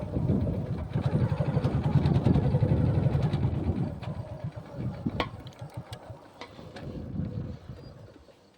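An engine running, louder about two seconds in and then fading away, with a few sharp clicks partway through.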